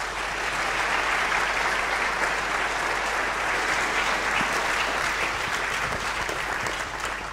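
Lecture-hall audience applauding after a keynote talk, a dense steady clapping that swells in the first second and tapers off near the end.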